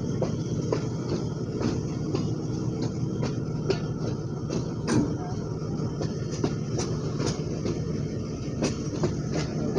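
ZCU20 diesel-electric locomotive running under power as the train pulls out of the station: a steady low engine drone with irregular clicks and knocks of the wheels over rail joints.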